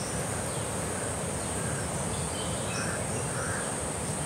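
Steady, high-pitched drone of insects such as crickets or cicadas, with a few faint short chirps over a low background hum of outdoor ambience.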